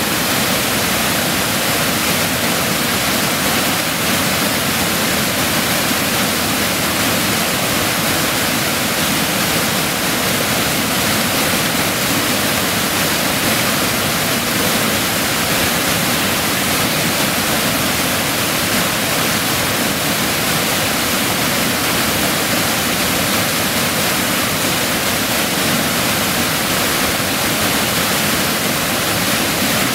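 Waterfall pouring over a rock ledge: a loud, steady rush of whitewater.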